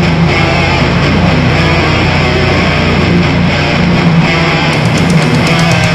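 Background hard rock music driven by electric guitar, loud and steady.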